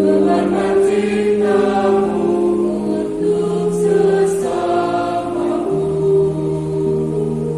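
Church choir singing an Indonesian communion hymn in several-part harmony, holding long sustained notes that move together in slow chord changes.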